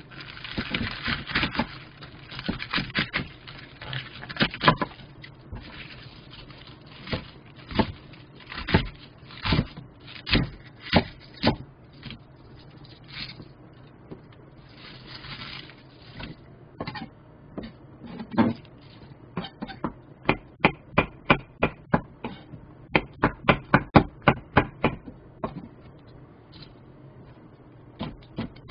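Kitchen knife cutting vegetables on a wooden cutting board: knocks of the blade against the board, uneven with short crunchy cutting sounds at first, then a quick, even run of chops, about three a second, in the second half as green chili peppers are sliced.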